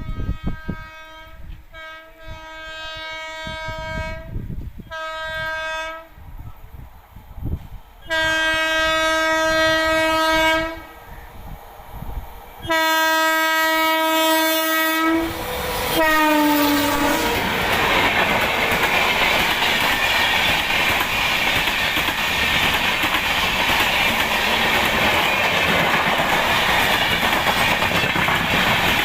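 Electric locomotive horn of an Indian Railways express sounding a series of blasts, three short then two long, the last one dropping in pitch as the train reaches and passes. Then the loud rush and wheel clatter of an LHB express train going by at speed.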